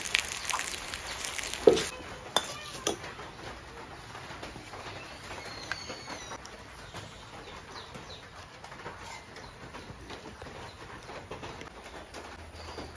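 Fritters sizzling in oil in an iron kadai while a metal spatula scrapes and clanks against the pan, the loudest clank a little under two seconds in. The frying stops soon after, leaving a few faint bird chirps.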